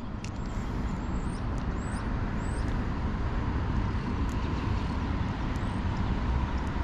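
Steady road traffic noise, with a few short high rising chirps about one to three seconds in.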